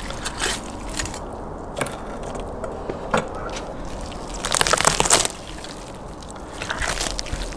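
Whole tandoor-roasted lamb being carved with a knife and pulled apart by hand on a wooden board: wet tearing and crisp crackling of the roasted skin, meat and rib bones. The loudest burst of crackling comes about halfway through as the rib section is broken open, with a smaller one near the end.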